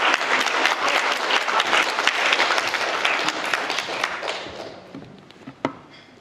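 Audience applauding, the clapping dying away about five seconds in. A single sharp knock follows near the end.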